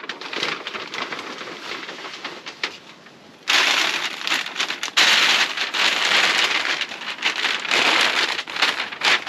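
Tyvek groundsheet crinkling and rustling as it is unfolded, laid down and smoothed flat by hand, louder and more continuous from about three and a half seconds in.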